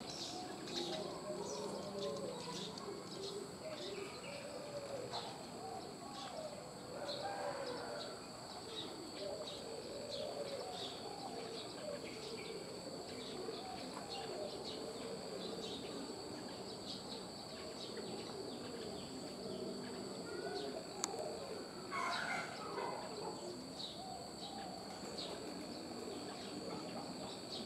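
Several birds calling: a busy run of low wavering or cooing notes with short high chirps scattered throughout, over a steady high-pitched hum. A single sharp click sounds about 21 seconds in.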